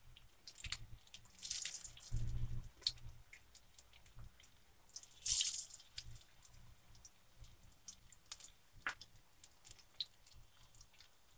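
Mushroom-and-potato tikkis shallow-frying in hot oil on a medium flame: faint, scattered crackles and spits. There are a few short louder bursts as more patties are laid into the pan one by one.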